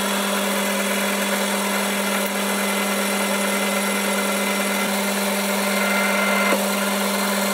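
Boxford metal lathe running steadily while turning a bar held between centres: a constant motor and gear hum over an even hiss. The sound changes slightly near the end.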